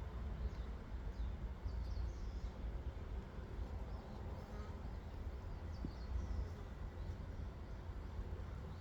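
Outdoor ambience by a hive of Korean native honeybees: a steady low rumble with the faint hum of bees flying at the entrance. Birds chirp a few times in the background.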